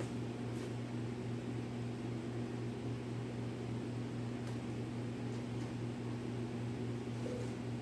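Steady low electrical hum from workshop equipment over a constant hiss, with a few faint light scrapes or taps.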